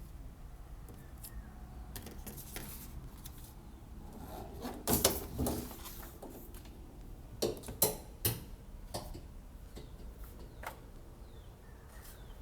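Handling noises: a few short knocks and clatters, loudest in a cluster about five seconds in and again about seven and a half to eight seconds in, over low room noise.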